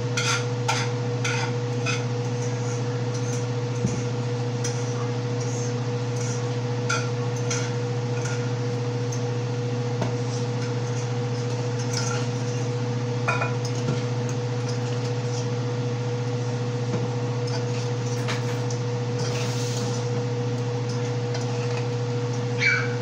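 Light clinks and taps of a utensil against a saucepan as food is stirred, a quick run of them in the first two seconds and a few more scattered after, over a steady low hum.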